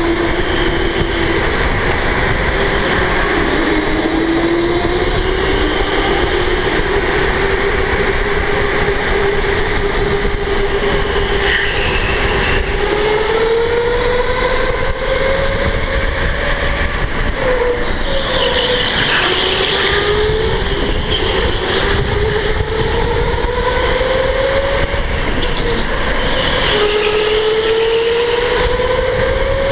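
Electric go-kart motor whining, the whine climbing slowly in pitch as the kart gathers speed and dropping back each time it slows, over a steady low rumble.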